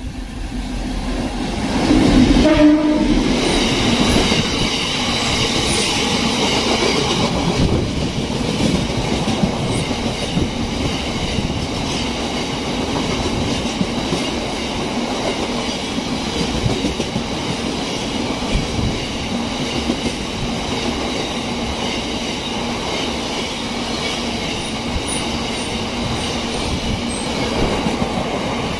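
Freight train of biomass hopper wagons passing through a station at speed: the diesel locomotive sounds a short horn blast about two seconds in as it approaches. It is followed by the continuous rumble and clatter of the wagon wheels over the rail joints.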